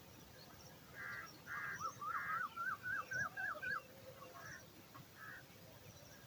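Bird calling: a few short harsh calls, then a quick run of about eight rising chirps at roughly four a second.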